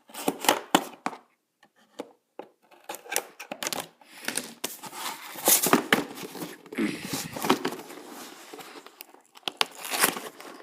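Cardboard toy box being cut and torn open at its sealed tabs: irregular tearing, scraping and crinkling of the packaging.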